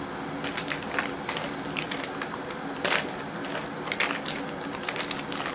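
Plastic butter wrapper crinkling and crackling in short, irregular bursts as the butter is scraped off it with a silicone spatula into a bowl.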